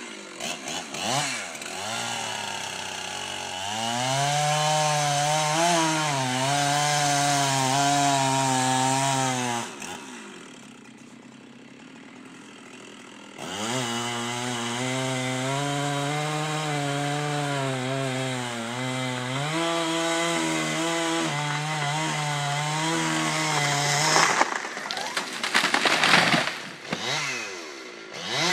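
Chainsaw cutting through a basswood trunk: running at full throttle in the cut with the pitch wavering, dropping to idle for a few seconds about ten seconds in, then cutting again. Near the end the saw stops and loud cracking and crashing follow as the tree falls.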